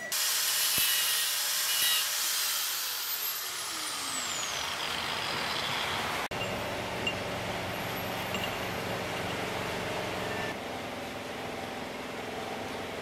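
Workshop power-tool noise: a loud hiss with a whine falling steadily in pitch over the first few seconds, then, after a sudden break about six seconds in, a steady machine hum.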